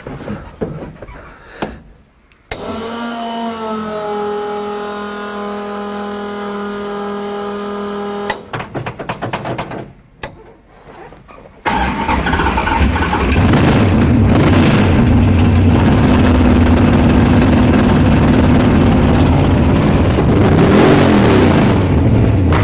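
An electric fuel pump on a 1968 Hemi Barracuda drag car whines steadily for about six seconds, its pitch rising briefly as it comes on, followed by a few clicks. About halfway through, the 426 Hemi V8 fires right up and runs loud and steady, with one blip of the throttle near the end.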